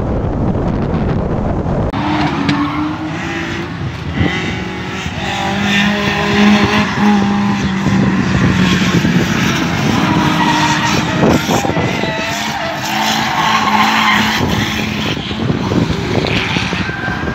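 Drift car on track, engine revving up and down while its tyres squeal and hiss through a sustained slide. It opens with about two seconds of low engine and road rumble from inside a slow-moving car.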